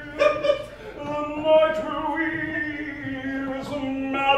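A man singing, holding long drawn-out notes and gliding between them.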